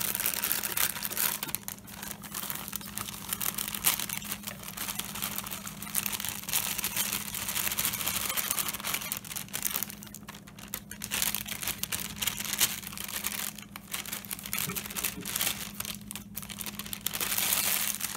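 Thin plastic inner bag of a boxed cake mix crinkling and rustling as it is handled and shaken, with the dry mix poured out of it into a plastic bowl.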